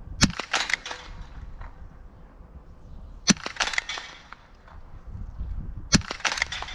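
Small-bore .22 biathlon rifle shots on a range: sharp cracks in three clusters about three seconds apart, each a loud crack followed by several fainter ones.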